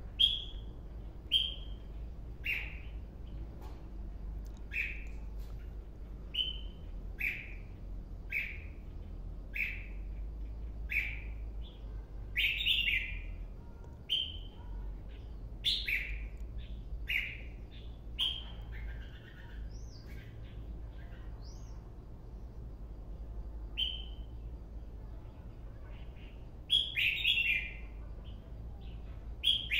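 Caged white-cheeked red-whiskered bulbul singing: short high chirping notes about once a second, broken by a few louder, fuller phrases, over a steady low hum.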